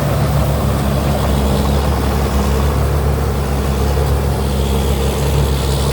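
Cummins diesel engine of a rice combine harvester running steadily under load while harvesting, a constant low hum.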